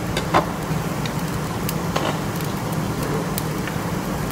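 Meat sizzling on a tabletop grill pan over a portable gas stove, a steady crackling hiss over a low hum. A sharp utensil clink about half a second in and a lighter one about two seconds in.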